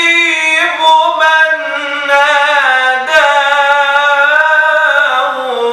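A man singing an Islamic nasheed unaccompanied, drawing out long held notes that slide up and down.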